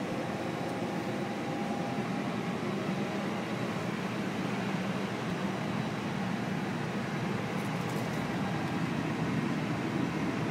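Steady whooshing hum of air-conditioning and equipment-cooling fans in an Airbus A321 cockpit, with a faint steady whine running through it.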